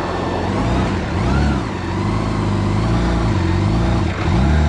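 Campagna T-Rex's BMW motorcycle straight-six engine revving up and dropping back about three times as the clutch is let out to pull away from a stop.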